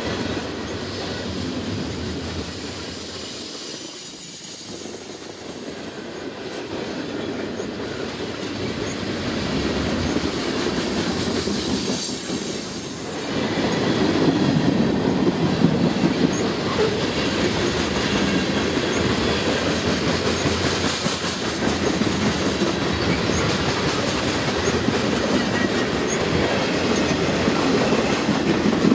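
Freight cars of a Canadian Pacific train rolling past: tank cars, covered hoppers and boxcars, making a steady rumble and clatter of wheels on rail that grows louder about halfway through.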